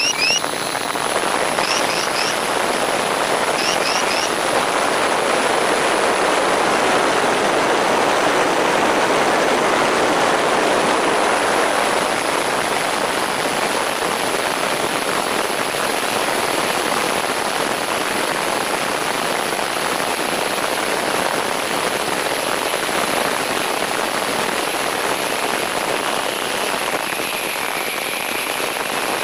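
Steady rush of wind and propeller noise over the onboard camera of an MFD Crosswind Nimbus Pro RC plane in flight, slowly swelling and easing. A faint whine dips in pitch near the end.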